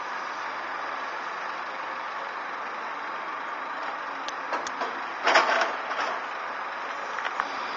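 Heavy diesel machinery running steadily, with a few clanks and a louder metallic knock a little past halfway, typical of an excavator working its bucket while loading a dump truck.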